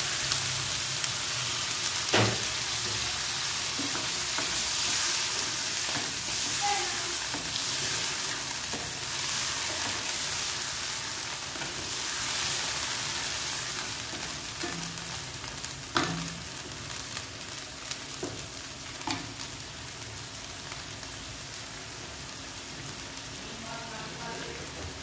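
Chicken frying in a non-stick wok, sizzling and hissing in oil with a splash of water just added, while a wooden spatula stirs. A few sharp knocks of the spatula against the pan stand out, and the sizzle grows quieter in the second half.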